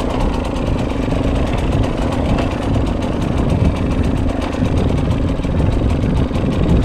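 Dirt bike engine idling steadily close to the microphone.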